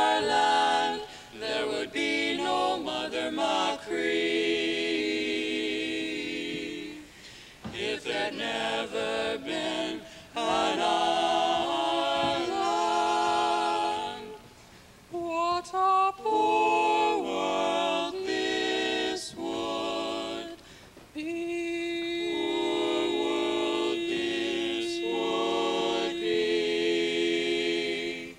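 Barbershop quartet of four teenage male voices singing a cappella in close harmony, phrases separated by short breaths. It closes on one long note held for about the last seven seconds while the other voices move above it.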